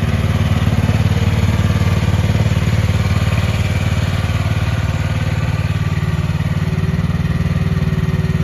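Briggs & Stratton gasoline engine of a DLK DK12 mini excavator running at a steady speed while the machine is worked. A faint steady whine comes in near the end.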